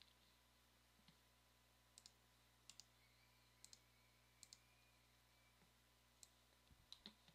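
Faint computer mouse clicks, mostly in quick pairs like double-clicks, spaced about a second apart, over near-silent room tone.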